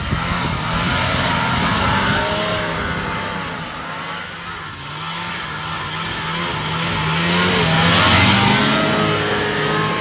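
1979 Ski-Doo Citation 300 snowmobile's two-stroke engine running while ridden over snow, its pitch rising and falling with the throttle. It is loudest about eight seconds in as the sled comes close.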